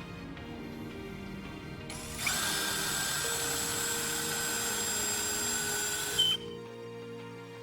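A small electric power tool runs steadily for about four seconds, starting about two seconds in, its motor giving a high steady whine; background music plays throughout.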